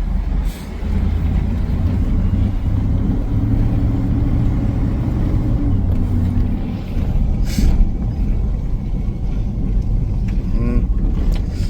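A 2002 Chevy Silverado pickup driving, its engine and road noise a steady low rumble with a held drone that eases off after about six seconds, heard from inside the cab. It is a test drive on a freshly replaced wheel hub, listening for the old bearing noise, and the driver hears none. A short sharp sound breaks in about two thirds of the way through.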